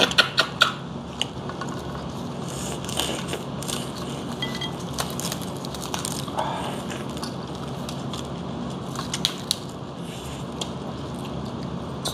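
Steamed red snow crab legs cracking and snapping as they are broken apart by hand, a quick cluster of sharp cracks in the first second, then scattered crunches.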